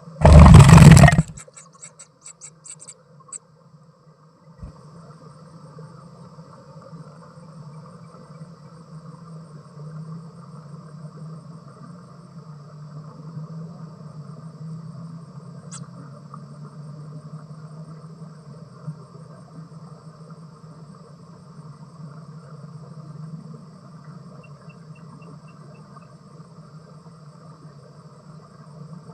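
Insects chirring steadily in a high, even drone with a faint fast pulsing above it, over a low background hum. A loud burst of noise lasting about a second comes right at the start, trailing off in a few clicks.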